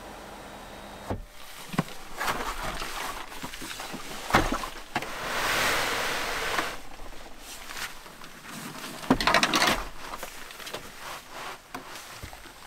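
Hard plastic storage cases being handled and slid into place on a floor mat: sharp plastic knocks and clacks, a scraping slide of a second or so in the middle, and a quick cluster of clicks a little past halfway.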